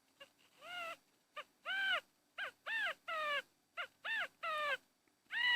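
Quail calling: a series of loud, pitched, arching notes, repeated in quick groups of a short note followed by one or two longer notes.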